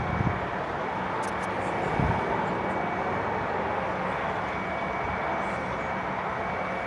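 Steady rumble of an airplane passing overhead.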